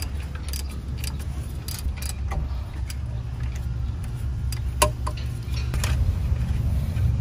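A hand ratchet and socket backing out a rear brake caliper bracket bolt that has just been broken loose, giving scattered metallic clicks and clinks, with a sharper clank about halfway through. A steady low rumble runs underneath.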